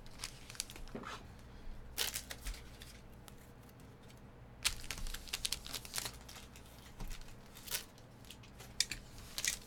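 Foil trading-card pack wrapper crinkling and tearing, in several short spells of sharp crackle with pauses between.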